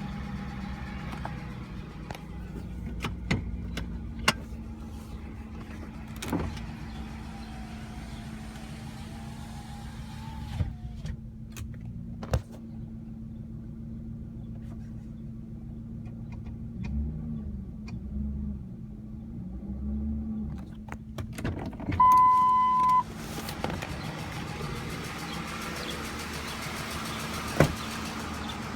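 Ford 5.4L 3V V8 engine idling steadily with scattered clicks; the owner suspects the ticking comes from the lifters. A loud electronic beep sounds for about a second a little past two-thirds of the way through.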